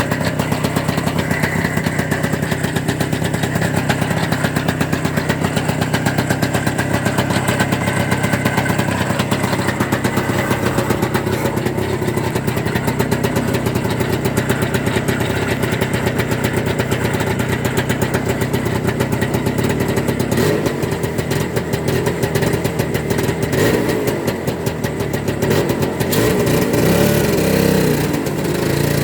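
Engine of a Muravey motor-scooter tricycle running steadily. Its note changes about two-thirds of the way through and gets louder near the end.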